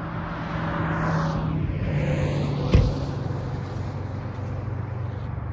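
Steady low engine drone, with a vehicle swelling and fading past about a second in and a single sharp knock just before the middle.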